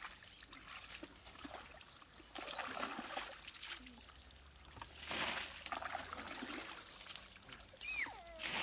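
Muddy water sloshing and splashing as someone wades through a shallow mud pond and scoops and tips out water with a woven basket, in irregular bursts, the loudest about five seconds in and another near the end.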